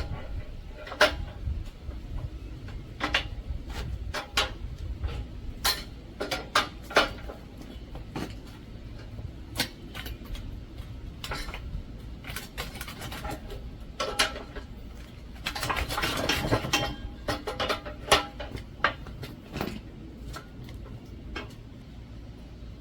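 Scattered metallic clinks and knocks of hand tools on a steel barrel vise as it is cranked down tight on oak bushings. There is a longer rasping, scraping stretch about two-thirds of the way through.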